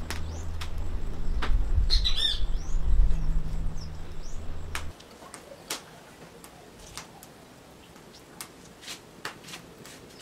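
A bird chirps a quick run of rising-and-falling notes about two seconds in, over a low rumble that cuts off suddenly about halfway through. After that only faint, scattered short ticks are heard.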